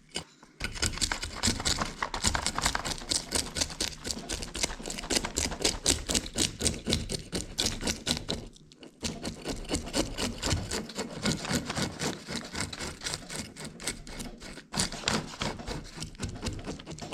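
Handheld fish scaler with a plastic shroud scraping scales off a panfish in fast, rapid rasping strokes, with two short pauses.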